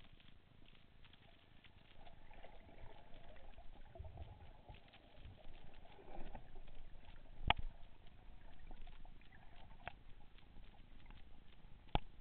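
Muffled underwater sound through the camera housing on a freediver's speargun: a faint crackle of small clicks, a brief low rumble, and two sharp knocks, one midway and one near the end.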